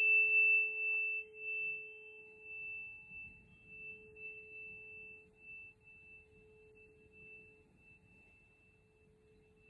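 A 432 Hz tuning fork in the note of A rings after being struck, one pure steady tone with a faint high overtone, slowly fading away until it is barely heard near the end.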